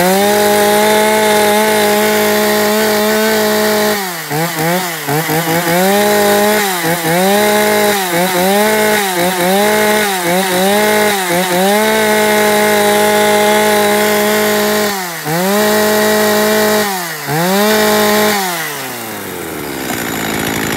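Echo Pro two-stroke chainsaw running at a test start: revved to full throttle and held, then blipped down and back up again and again, held high once more with two short dips, and let back down to idle near the end.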